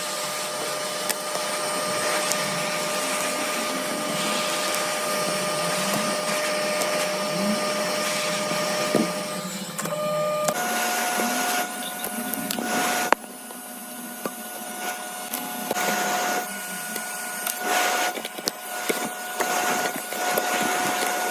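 A small electric blower motor running with a steady whine over an airy hiss. The whine steps up slightly in pitch about ten seconds in, and after that the hiss comes and goes in short surges.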